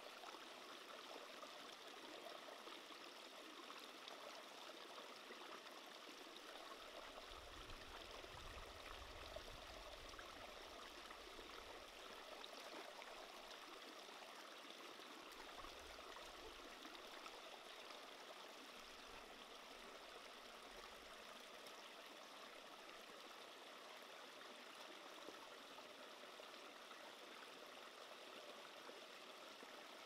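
Small rocky stream running and trickling over stones: a faint, steady water sound.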